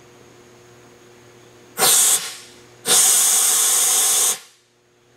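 Compressed-air vacuum hissing in two bursts, first a short one and then one of about a second and a half, as it is held to the throat of an aircraft pitot tube to suck out debris dislodged from it.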